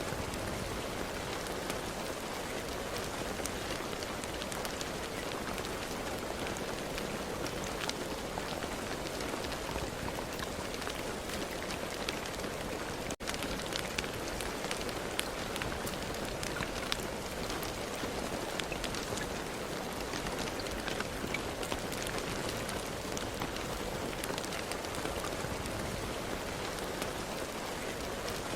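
Steady rain falling on a surface: an even hiss with many separate drop ticks, broken by a momentary dropout about halfway through.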